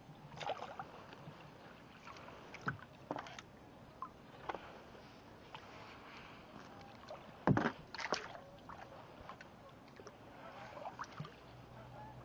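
Kayak paddle strokes, the blades splashing in and out of the water beside the hull, with water sloshing in between. The splashes and knocks come at uneven intervals, the loudest a little past halfway through.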